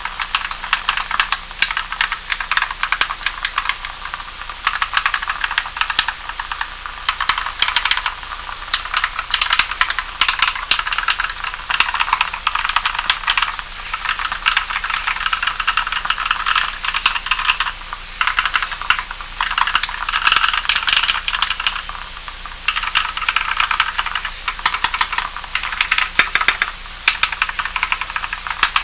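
Typing on an EO87 mechanical keyboard with Kailh Cream switches (Krytox 105 oil lubed, 75 g springs, switch films) and Permatex-greased Equalz stabilizers: a dense, continuous stream of keystroke clacks with a few brief pauses.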